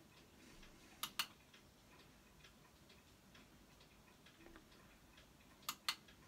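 Faint, quick, regular ticking, about three ticks a second, with a louder pair of sharp clicks about a second in and another pair near the end.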